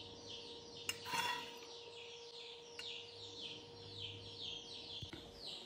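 A bird calling over and over, short falling chirps at about three a second. A brief clatter about a second in.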